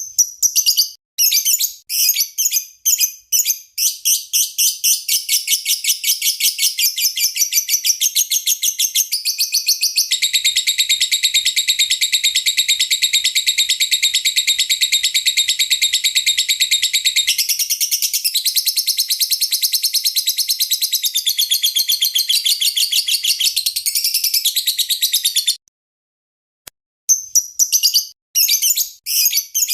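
Lovebird song: loud, rapid, high-pitched chirps that run together into a long unbroken trill for several seconds in the middle. The song cuts off abruptly for about a second near the end, then the chirping starts again.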